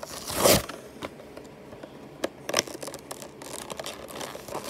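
Cardboard backing of a toy car's blister pack being ripped open by hand: one loud tear just after the start, then a few sharp clicks and scattered crackles of card and plastic as the package is handled.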